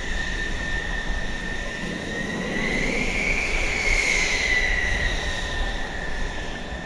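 F-14 Tomcat's twin jet engines whining steadily at taxi power over a low rumble; the high whine rises a little in pitch and loudness about halfway through, then settles back.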